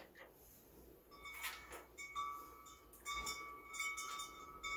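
Faint background music with held notes, along with light clicks and clinks of a hand tool on small metal fasteners as they are tightened.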